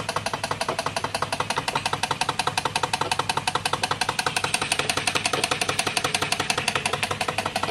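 Flame-fired Jensen 35 toy steam engine running on live steam, driving its belt-driven workshop toys, with a rapid, even beat of about eight strokes a second over a faint steady hum.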